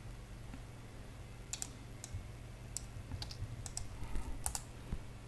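Light, irregular clicking at a computer: about ten short, sharp clicks, bunched from about one and a half seconds in, over a faint steady low hum.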